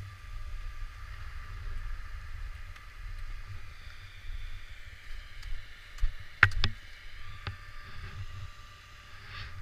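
Skis sliding and turning on packed snow with wind rumble on the microphone: a steady hiss of the skis on the snow, with a few sharp clicks and knocks about two-thirds of the way through.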